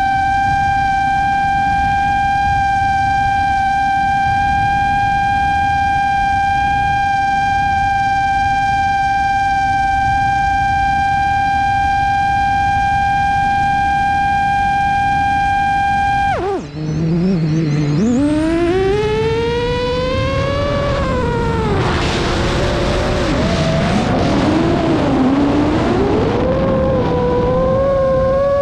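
An FPV quadcopter's motors and propellers whine at one steady pitch, over a rush of air at the onboard camera. About sixteen seconds in the throttle is chopped and the whine falls away. It then comes back, its pitch rising and falling as the throttle is worked.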